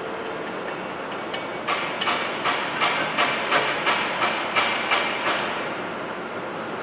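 A hammer striking metal in a steady rhythm, about three blows a second for roughly a dozen blows, over a steady hiss.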